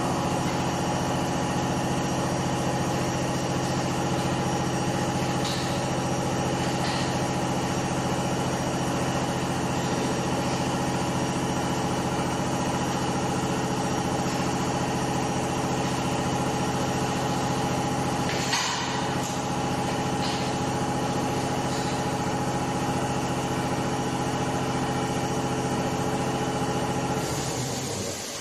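Industrial machinery running with a steady hum of several held tones, starting just before and stopping shortly before the end; a single sharp click about two-thirds of the way through.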